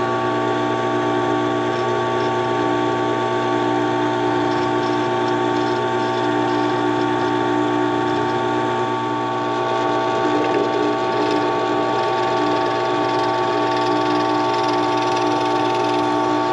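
Craftsman 10-inch benchtop drill press running steadily, its motor and spindle giving a constant whine and hum as the bit drills a hole through a Douglas fir walking stick.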